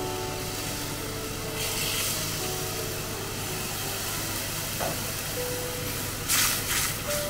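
Coconut milk poured into a hot stainless pan of ground spice paste, sizzling with a steady hiss; about six seconds in, a wooden spatula stirs and scrapes the pan in a few quick strokes, the loudest sounds here. Soft background music underneath.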